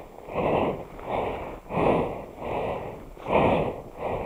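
A person breathing hard in a steady rhythm of breaths in and out, each stronger breath followed by a weaker one: winded from struggling with a snowmobile stuck in deep powder.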